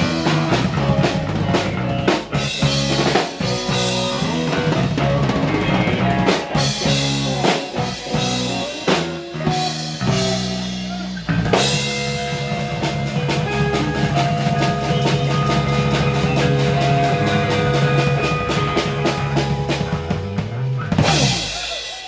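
Live rock band playing without vocals: electric bass, electric guitar and drum kit. About halfway through the band hits together and holds long ringing notes under steady drum and cymbal hits. A last hit comes near the end and the sound dies away, as a song's ending does.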